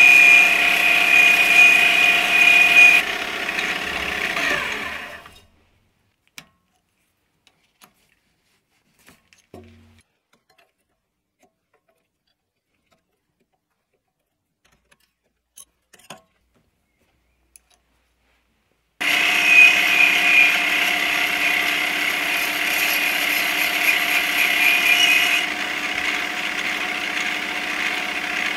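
Mini lathe running with a steady whine while a boring bar cuts inside a part in the chuck; about three seconds in it drops and winds down to a stop. A long near-silent stretch follows with a few small clicks as the compound slide is adjusted, then the lathe starts abruptly about two-thirds of the way through and runs again with the boring cut.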